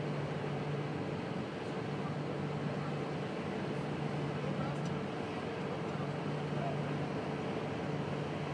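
Diesel engines of heavy construction equipment running: a steady low drone with a constant hum and no breaks.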